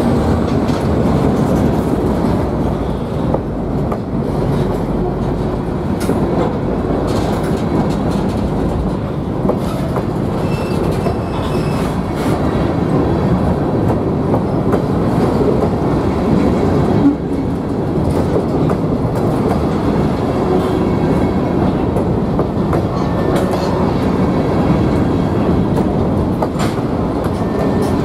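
Covered hopper cars of a freight train rolling past, their steel wheels making a steady rumble and clicking over the rail, with one sharper knock about seventeen seconds in.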